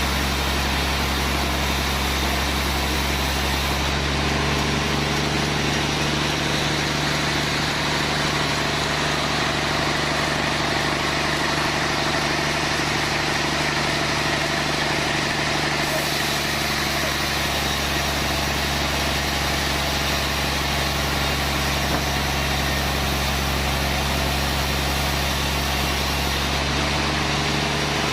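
Sawmill machinery running steadily: a continuous engine-like drone with a steady low hum, its lowest tones shifting slightly a few seconds in and again about halfway through.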